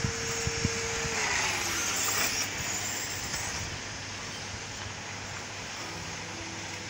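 Intech ER12 electric radio-controlled car running on the track: a steady motor whine that slides down in pitch about a second in as the car slows, a short rush of higher hiss around two seconds in, then fainter running.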